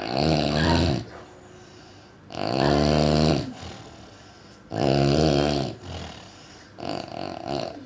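Heavy snoring: four loud snores, each about a second long, coming roughly every two seconds, the last one weaker.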